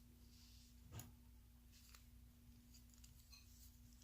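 Near silence: room tone with a faint steady hum and one soft knock about a second in.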